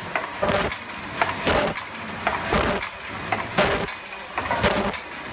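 MB-C12 medium-speed paper cup forming machine running at production speed. Its mechanism knocks in a repeating pair of sharp clacks about once a second, in step with its rate of roughly 65–75 cups a minute.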